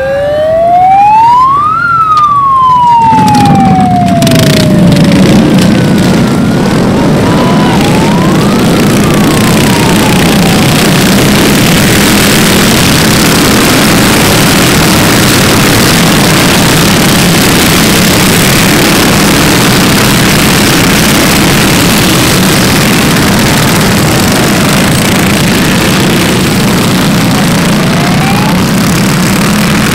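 A siren-like wail rises and then falls once at the race start. A few seconds in, a pack of minibike engines starts revving and running together, and they go on as a dense, steady mass of engine noise as the field launches and pulls away.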